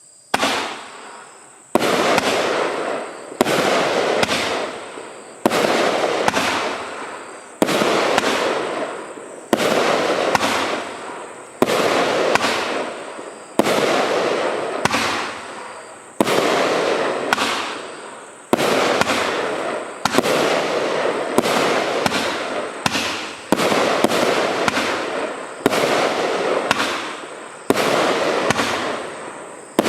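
Consumer firework barrage firing shot after shot: a sudden loud bang about every one and a half to two seconds, each followed by a rush of noise that fades before the next.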